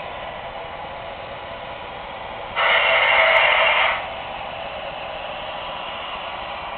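Steady hiss from MTH O-gauge model subway trains idling in a layup yard. A louder burst of hissing starts suddenly about two and a half seconds in and cuts off about a second and a half later.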